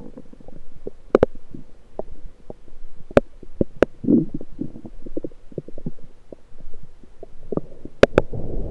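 Lower intestinal gurgling picked up through an electronic stethoscope on the abdomen: irregular short bubbly pops and gurgles, a few of them sharp clicks, with a denser gurgle about four seconds in.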